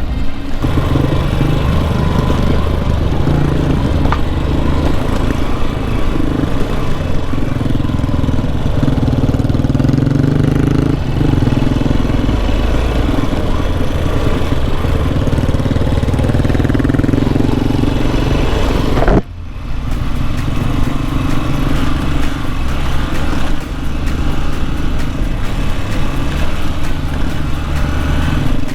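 Motorcycle engine running under way, its pitch and level stepping up and down with throttle and gear changes. There is a brief sharp dip about nineteen seconds in.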